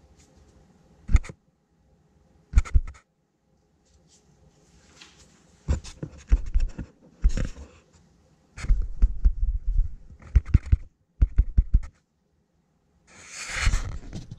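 Sharp knocks and clattering from things being handled: two single knocks early, then dense runs of knocks, and a short hiss near the end.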